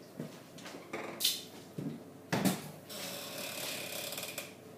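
Kitchen handling sounds as milk is fetched from the fridge: a few light knocks, a louder thump about two and a half seconds in, then about a second and a half of steady rattling.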